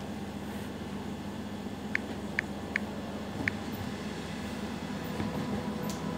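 Steady hum of a running window air-conditioner unit, with four short high squeaks between about two and three and a half seconds in.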